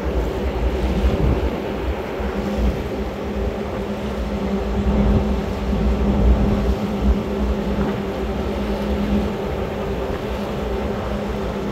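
Tugboat engine running steadily under way, heard from on board: an even hum with a low, uneven rumble beneath it.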